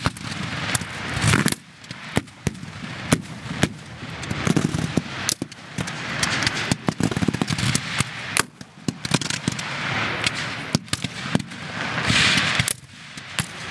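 Black-powder muskets firing blank charges in ragged, uneven volleys: many sharp cracks at irregular intervals, some overlapping.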